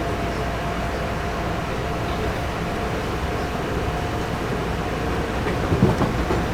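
Inside a Long Island Rail Road M9 electric railcar running at speed: steady rumble of the wheels on the rails with a faint steady whine, and a few low knocks near the end.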